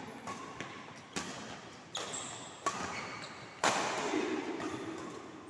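Badminton rally: rackets striking the shuttlecock about four times, roughly once a second, each sharp hit echoing in the hall, the loudest a little past the middle. Short high squeaks of court shoes come between the hits.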